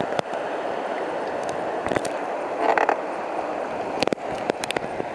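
Steady rush of river water around a raft, broken by scattered sharp knocks and clicks, several of them close together near the end.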